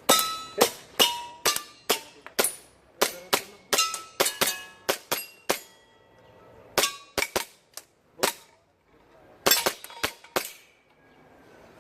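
Airsoft pistol firing fast strings of sharp shots, with short pauses about six seconds in and again near nine seconds. Several shots are followed by a brief metallic ring from struck steel targets.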